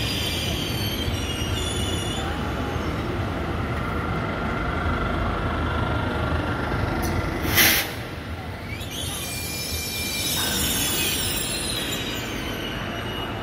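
Italo high-speed train rolling slowly past along the platform, its wheels squealing in thin high tones over a steady rumble. About halfway through there is a short, loud hiss.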